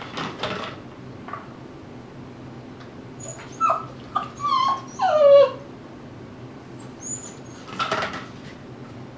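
Tibetan Terrier puppy whimpering: a run of short whines falling in pitch about halfway through, ending in one longer downward whine, with brief knocks and rustles of toys at the start and again near the end.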